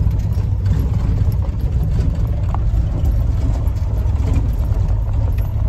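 Van driving along, its engine and road noise heard from inside the cabin as a steady low rumble.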